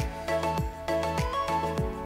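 Background music with a steady beat: a deep kick drum that falls in pitch, a little under twice a second, under a bright melody.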